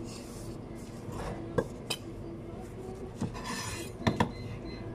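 Several sharp clicks and knocks of utensils and containers being handled on a sushi prep counter, two of them close together about four seconds in, with a brief hissing rush just before, over a steady background hum.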